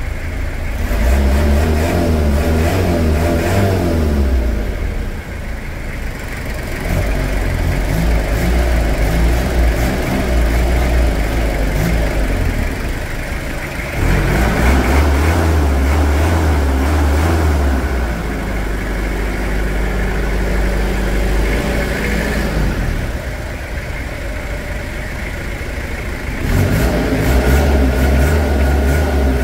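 Toyota Hilux SR5 diesel engines revving and idling in turn. The revs rise and fall in three stretches, about a second in, in the middle and near the end, with steadier running between.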